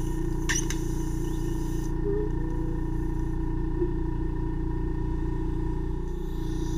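Ear microsuction unit running: a steady pump hum with the hiss of air drawn through the suction tip in the ear canal, and a brief crackle of wax being sucked up about half a second in. The higher hiss falls away for a few seconds in the middle while the tip sits against the wax.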